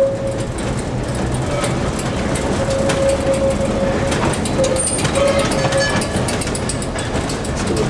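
Peter Witt streetcar running along the track: a steady rumble and rattle from the car, with frequent clicks of the wheels over the rails and a whine that comes and goes.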